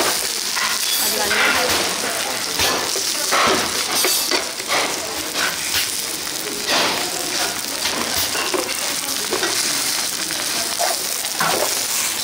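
Food frying in oil with a steady sizzle, broken by occasional sharp clicks and knocks of kitchen utensils.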